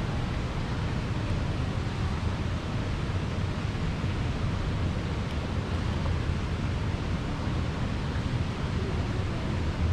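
Steady rushing noise with a low rumble underneath, even throughout, with no distinct events.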